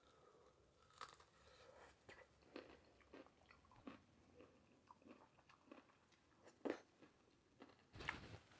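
Faint close-up chewing of food, a string of short, irregular crunches and mouth clicks, with louder crunches about two-thirds of the way through and near the end.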